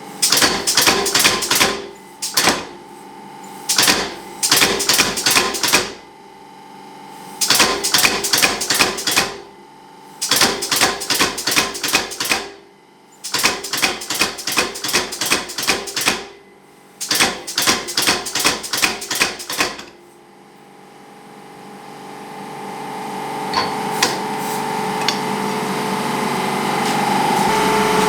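Blacksmith's hammer striking hot steel on an anvil in seven rapid runs of blows, each lasting about two seconds with short pauses between. After the last run, about two-thirds through, a steady noise builds gradually louder.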